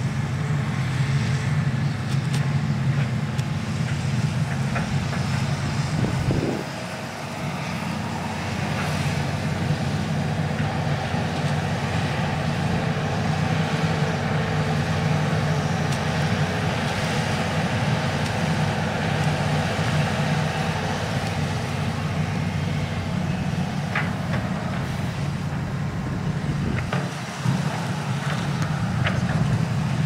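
Hitachi EX200 hydraulic excavator's diesel engine running steadily under working load as it digs and swings. The engine note eases off briefly about six seconds in and again near the end.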